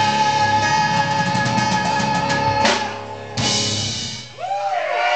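A live rock band ends a song: a sustained electric guitar chord rings over a quickening drum roll, then two final crashes with the cymbals ringing out. Near the end the crowd starts cheering and whistling.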